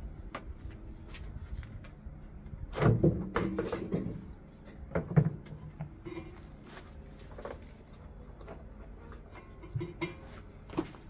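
Knocks, clatter and scraping of washing machine drum parts being handled and pried apart, with a burst of clattering about three seconds in and a sharp knock a second or so later.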